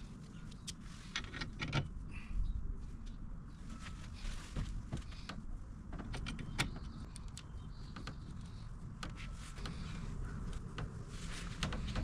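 Scattered light clicks, knocks and rattles of the bike repair stand's parts being handled and the adjusting knob being fitted and threaded in, over a low steady hum.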